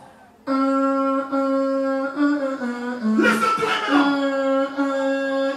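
A man humming a melody into a microphone over the stage PA: long held notes that step down in pitch and start again, with a short shouted burst about three seconds in.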